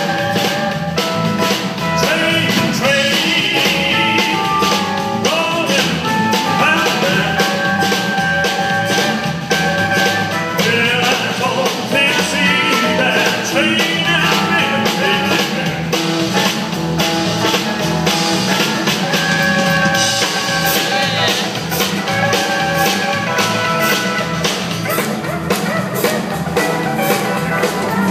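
A live rock-and-roll band playing: electric and acoustic guitars over a drum kit, with a man singing the lead in stretches.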